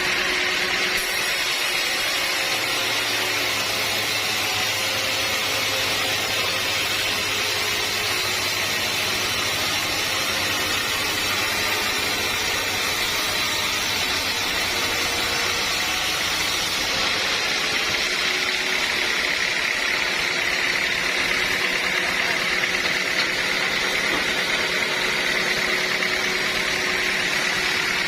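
Sawmill machinery running steadily, an even mechanical drone with a low hum that fades out about two-thirds of the way through.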